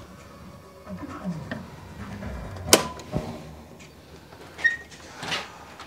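A sharp switch click about three seconds in as the shop's overhead lights are switched off, followed by a few softer knocks and shuffling.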